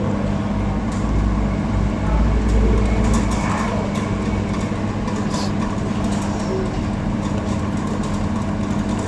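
Hot-air rework station blowing steadily while a component is heated back into place: an even rush of air over a constant low fan-motor hum, with a few faint ticks.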